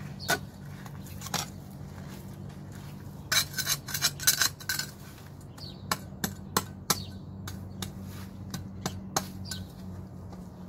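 Sharp metallic clicks and scrapes of a hand blade cutting grass, coming in quick clusters about three to five seconds in and again around six to seven seconds, over a steady low hum.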